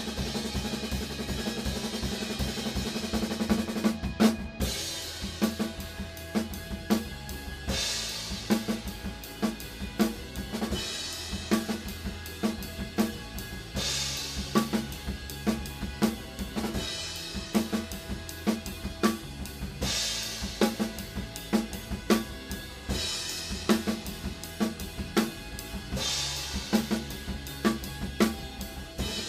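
Rock drum kit played hard: snare, bass drum and tom hits with cymbal crashes on the accents about every three seconds. It opens with a cymbal wash that ends in a loud hit about four seconds in.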